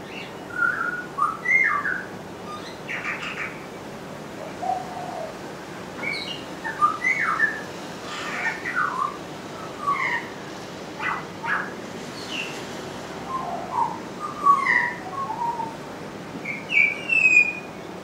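Pied butcherbird singing a varied run of short whistled phrases, its notes sliding up and down in pitch, with brief pauses between phrases.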